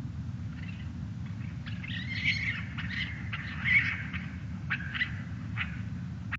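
A bird calling: a string of short, high chirping calls, loudest around the middle, over a steady low hum.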